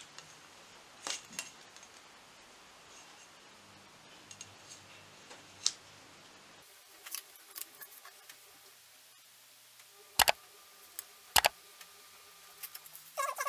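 Light taps and clicks of a metal ruler and a marker pen being handled and lined up on a card, with two sharp clicks a little over a second apart near the end.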